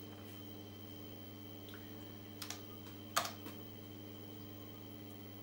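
A few keystrokes on the IBM 5150's Model F keyboard: two light clicks about two and a half seconds in, then one sharp louder click a moment later and a faint one after it. A steady low hum runs underneath.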